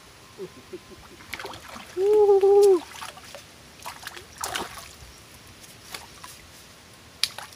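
A hooked fish splashing at the water's surface close to the bank, heard as short irregular splashes. A man's drawn-out shout about two seconds in, lasting under a second, is the loudest sound.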